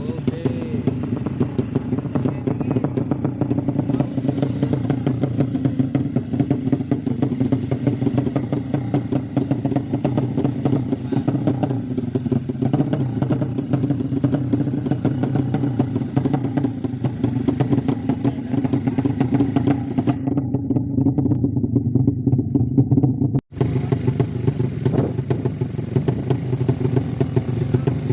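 Tuned 200cc single-cylinder four-stroke motorcycle engine idling steadily, with the uneven idle of a racing build. The sound cuts out for an instant about 23 seconds in, then goes on unchanged.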